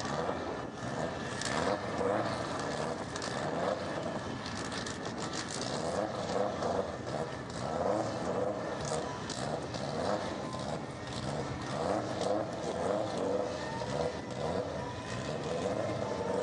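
Turbocharged Subaru Impreza STI engine held at the drag-strip start line, revving in repeated swells that rise and fall every second or so, with scattered sharp crackles.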